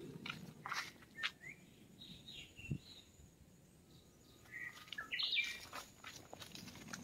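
Footsteps on a dirt footpath with a few short bird chirps; the loudest run of chirps comes about five seconds in.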